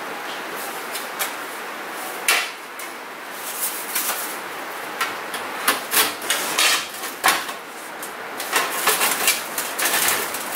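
Black stovepipe sections being handled and fitted back onto a wood cook stove: irregular metal clanks, knocks and scrapes, coming thicker in the second half.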